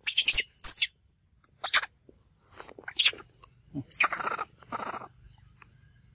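Young macaques giving a run of short, high-pitched squeals and screeches, the loudest in the first second.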